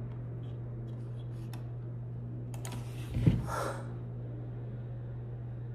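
A few light computer keyboard key clicks, then a single short breathy sigh a little after three seconds, over a steady low hum.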